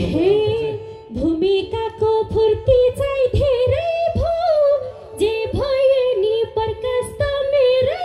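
A woman singing a line of a Nepali dohori folk song into a microphone, her voice bending and ornamenting each phrase, with little instrumental backing under it.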